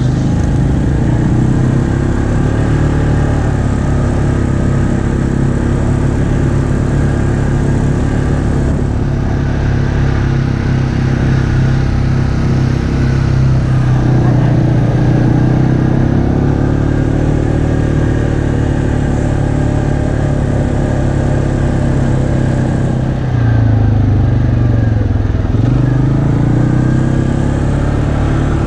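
Off-road vehicle's engine heard from on board while driving, running steadily. About three quarters of the way through, its pitch drops and rises again as the throttle is eased and reapplied.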